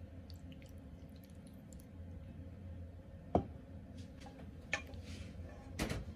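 Quiet room with a steady low hum, broken by a few sharp clicks and taps, the loudest about halfway through and two more near the end.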